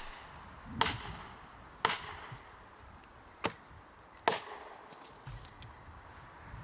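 Four sharp strikes of a tool on wood, unevenly spaced about a second apart.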